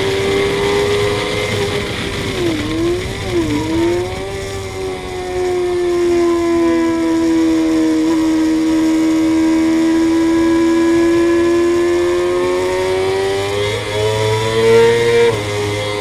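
Suzuki GSX-R inline-four sportbike engine heard on board at track speed. The engine note dips twice briefly about three seconds in, then holds nearly steady through a long corner, rises near the end and drops sharply just before the end.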